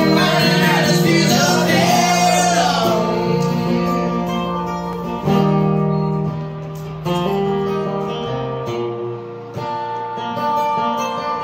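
A man singing to his own acoustic guitar, live. The voice is strongest in the first three seconds; after that the strummed chords ring on, changing a few times.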